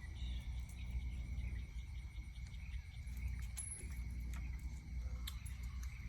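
Insects, crickets by the sound, trilling steadily as one thin high tone, over a low steady rumble and a few faint scattered clicks.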